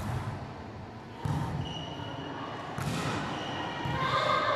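A volleyball being struck during a rally in a large gym hall: three sharp hits roughly a second and a half apart, each echoing in the hall. Players' voices call out near the end.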